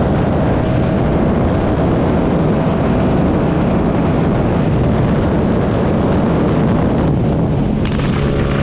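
Yamaha MT-07's 689 cc parallel-twin engine running while riding, with heavy wind rush on the microphone. Near the end the wind noise drops and a steadier, lower engine note comes through.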